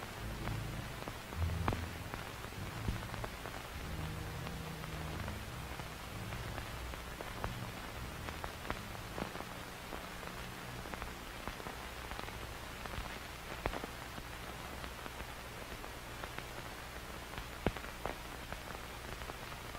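Crackling surface noise like a worn record or old film soundtrack: a steady hiss with scattered clicks and pops over a low rumble.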